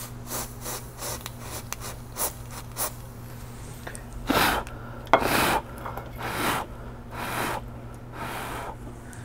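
Aerosol freeze spray hissing onto a phone logic board in about five short bursts from about four seconds in, after a few light clicks. It frosts the board so that the shorted component on the VDD main line will show itself by melting the frost first. A steady electrical hum sits underneath.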